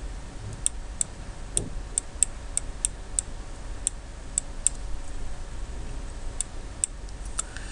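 Light, irregularly spaced clicks of a stylus tapping and stroking on a pen tablet as digits are handwritten, over a faint low hum.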